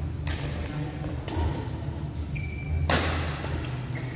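Badminton rackets hitting the shuttlecock during a rally, two sharp hits about two and a half seconds apart, the second louder, each ringing on in the large hall. A brief shoe squeak on the court comes just before the second hit, over a steady low hum.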